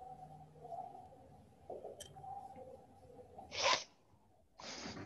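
Marker writing on a whiteboard: faint scratching, then two short, louder scratchy strokes, one a little past halfway and one near the end.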